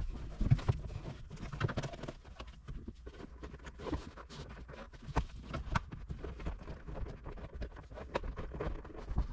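A cable being worked under a car's center console and carpet: irregular scraping and rustling with scattered light knocks and clicks.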